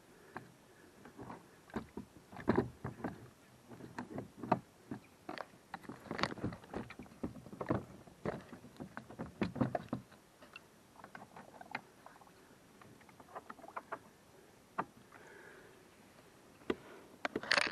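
Irregular clicks and knocks of a kayak's pedal fin drive being seated in its hull well and its twist locks turned by hand, busiest in the first half and sparser later.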